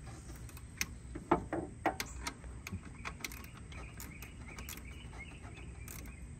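Scattered metallic clicks and knocks of hand tools at work on an alternator's mounting bolt from under the engine. The sharpest knock comes about a second and a half in, over a low steady background.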